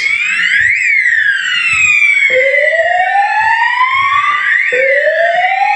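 Fire alarm sounders on a Ravel fire control panel sounding an evacuation siren tone during a test. A lower tone rises slowly and starts again about every two and a half seconds, over a higher tone that sweeps up and down.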